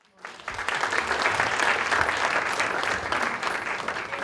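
Audience applause in a room: many hands clapping in a dense patter. It swells up within the first half-second and starts to die away near the end.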